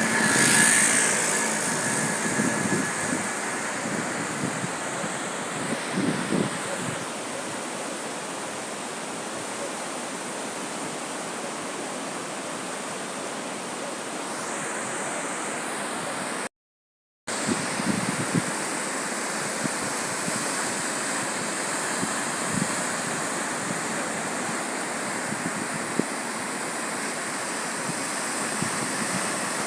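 Sea surf breaking on the shore, a steady rush mixed with wind on the microphone. The sound cuts out for about half a second a little past the middle.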